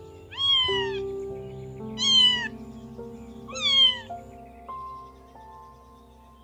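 A cat meowing three times, about a second and a half apart, each meow falling in pitch, over background music with long held notes.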